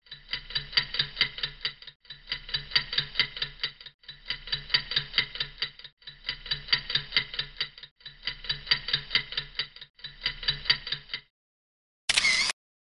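A clock-like ticking sound effect, about five to six ticks a second, played as a loop that restarts every two seconds and stops about eleven seconds in. Near the end a short camera-shutter sound effect clicks once.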